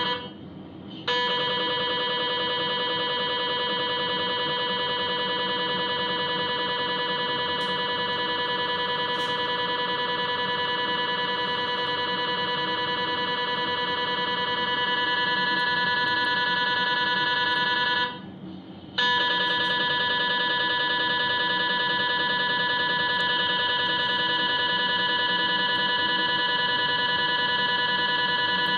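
MRI scanner's gradient coils buzzing with a steady, loud pitched tone during a sagittal LAVA dynamic pelvis acquisition. The tone stops briefly twice, about half a second in and again about two-thirds of the way through, between dynamic phases.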